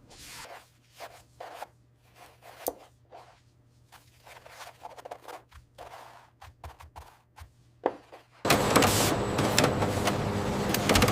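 Soft, scattered handling sounds of keyboard packaging: light clicks, scrapes and rustles of the box and its foam insert. About eight and a half seconds in, a much louder, dense clattering noise cuts in abruptly.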